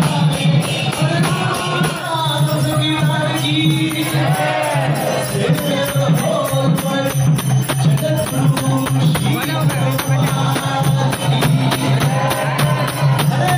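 Devotional kirtan: a lead singer chanting through a microphone over a harmonium's steady drone, with jingling hand percussion keeping an even beat.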